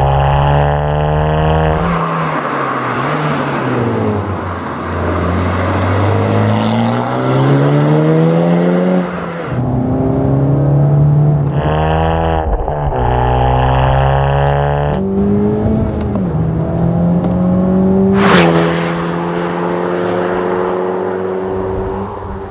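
Honda Civic Type R FK8's turbocharged 2.0-litre four-cylinder, heard through a REMUS cat-back sport exhaust, accelerating hard through the gears: revs climb in long sweeps and drop sharply at each upshift. A single sharp crack comes late on, followed by a steadier engine note that fades.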